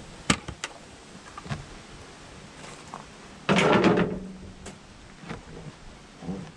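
A couple of sharp clicks near the start, then a loud scraping slide lasting under a second about three and a half seconds in, as parts of the truck are handled during the service.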